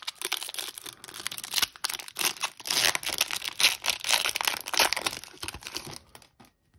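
Foil wrapper of a hockey card pack crinkling and tearing as it is ripped open, a dense run of crackles that thins out and stops about six seconds in.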